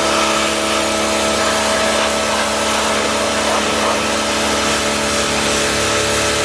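Greenworks Pro 60V battery-powered pressure washer running, its electric pump motor humming steadily under the hiss of the water jet spraying algae off rocks.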